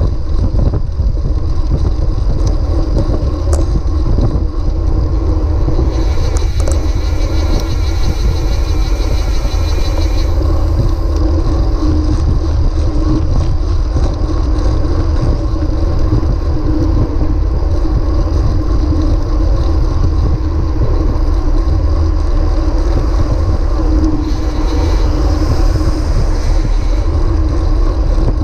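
Wind buffeting the microphone of a bicycle-mounted action camera at riding speed: a loud, steady low rumble, mixed with tyre and road noise. About six seconds in, a high whir comes in for a few seconds.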